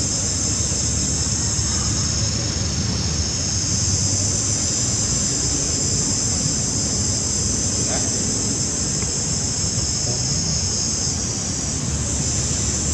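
Steady, high-pitched chorus of insects, typical of cicadas, droning without a break over a low rumble of background noise.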